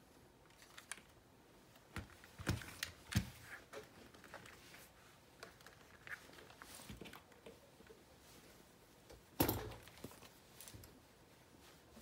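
Mechanical keyboard keys pressed now and then, a few separate key clacks rather than steady typing. There is a small cluster about two to three seconds in, and the loudest press comes about nine and a half seconds in.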